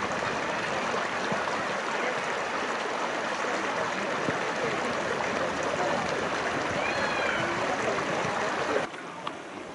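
Small stream rushing and splashing over rocks in a little cascade: a steady, even water noise that cuts off abruptly near the end.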